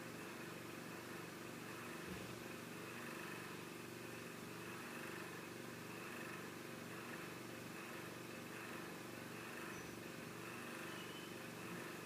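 Faint, steady hum made of several fixed low tones: room tone with a faint knock about two seconds in.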